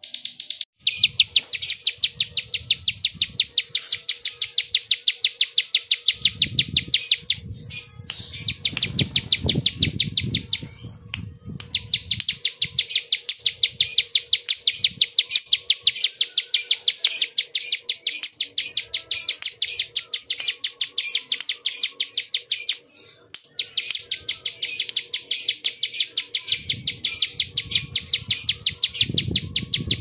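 Ciblek sawah prinia giving its fast clicking call: long runs of dry, rapid, insect-like ticks, broken by brief pauses, with a low rumble underneath at times.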